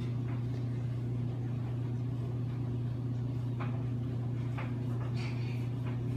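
Steady low hum with a few faint soft pats of hands on bread dough on a wooden table, about three and a half, four and a half and five seconds in.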